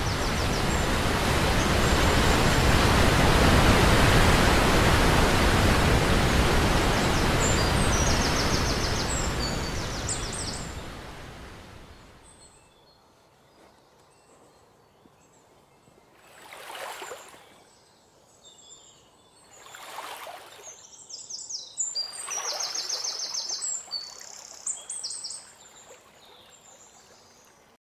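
A waterfall rushing loudly with birds chirping over it; the rush fades away about eleven seconds in. After a quieter stretch come three short whooshes, and birds chirp again toward the end.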